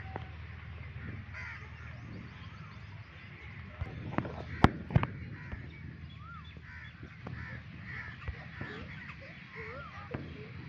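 Birds calling and chirping, with short arching whistled notes, over a steady outdoor background. Two or three sharp knocks about halfway through are the loudest sounds.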